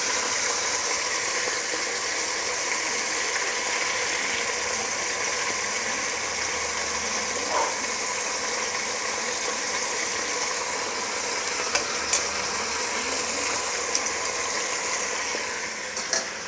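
Chicken pieces sizzling steadily as they brown in hot oil in a pressure cooker pot, with a few light clicks near the end.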